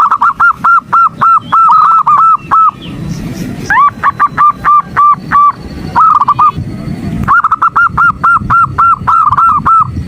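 Female zebra dove (perkutut) calling in rapid runs of short, arching notes, about four to five a second, with brief pauses between runs. It is the female's call to males, played as a lure to provoke male perkutut.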